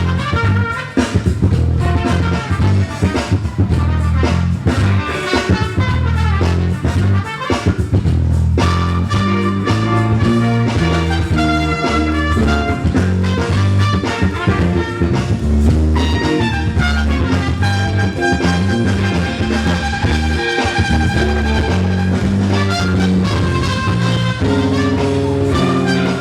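Live soul-funk band playing an instrumental groove with drum kit and bass, steady throughout, with long held notes in the second half.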